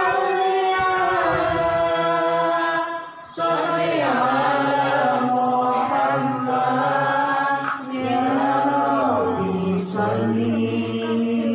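Islamic devotional verses (sholawat) sung unaccompanied into a microphone by a woman's voice, with long held, ornamented notes. The phrases break off briefly about three and eight seconds in.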